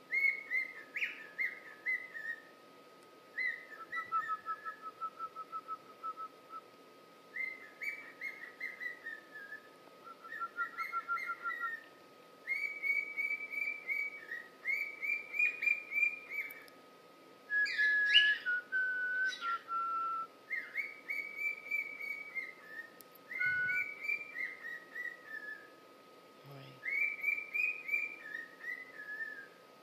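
Cockatiel whistling and chattering in a string of short warbling phrases, each a second or two long, some with quick trilled runs of notes, with brief pauses between them.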